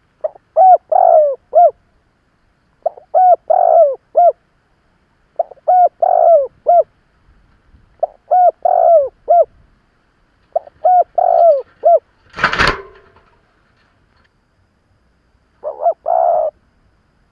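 Spotted dove cooing its repeated multi-note song: six phrases about two and a half seconds apart, with a longer gap before the last. A short, loud noise burst comes just after the fifth phrase.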